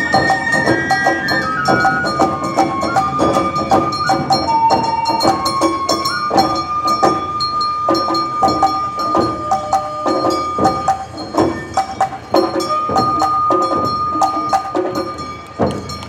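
Awa Odori accompaniment (narimono) played live: a bamboo flute melody that steps down and then holds long notes, over a brisk beat of taiko drums and clanging kane gong.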